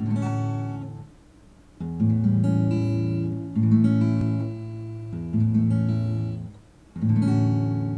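Acoustic guitar music: strummed chords, each ringing and fading, a new chord about every second and a half.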